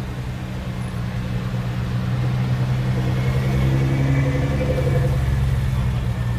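Tuned Nissan R35 GT-R's twin-turbo V6 with an HKS exhaust, rolling past at low speed with a steady low exhaust drone. It is loudest about four seconds in, as the car passes close.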